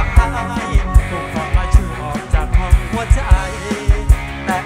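Live band playing an upbeat Thai song: a steady, heavy kick-drum beat with electric guitar and a male singer's voice.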